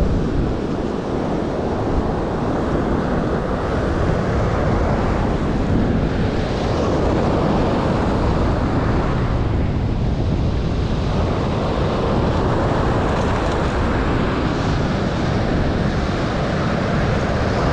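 Wind buffeting the microphone over the steady wash of surf breaking on the beach, with slow swells as waves come in.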